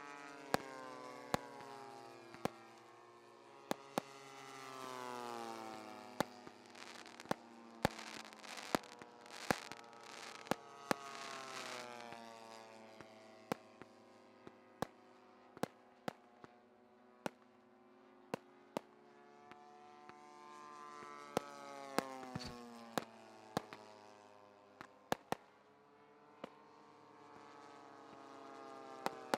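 Radio-controlled model airplane engine making several passes, its pitch rising and falling as it comes and goes. Scattered sharp firework pops and crackles sound over it.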